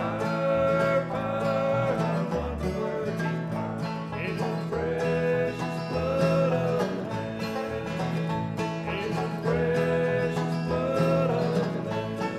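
Live bluegrass gospel band playing mandolin, upright bass, acoustic guitar and banjo, with the men singing in close harmony on long held notes. The singing stops near the end while the instruments play on.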